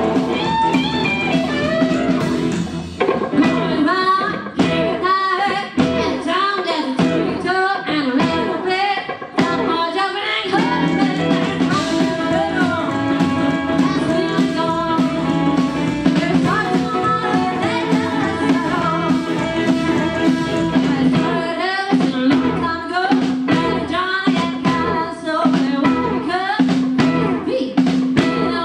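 Live rockabilly band playing: a woman singing over electric guitar and drum kit.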